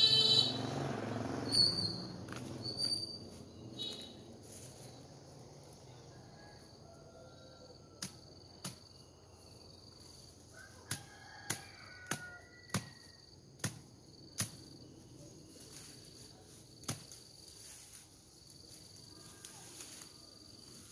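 Brush being cleared by hand: a loud strike at the start, then scattered sharp snaps and knocks of woody stems being cut and broken, about a dozen over several seconds in the middle. Insects chirp steadily in the background.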